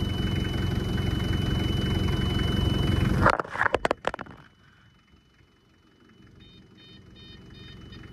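Still diesel forklift engine idling, with its seat-belt warning beeping in short repeated pips, a fault the owner traces to a loose plug under the seat. About three seconds in, a few sharp knocks and the engine sound stops; near the end the pips come back faintly.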